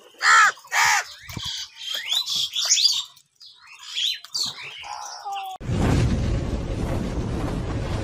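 House crows cawing, with harsh, overlapping calls, the loudest two in the first second. About five and a half seconds in, the calls cut off abruptly into a steady rushing, rumbling noise from an intro sound effect.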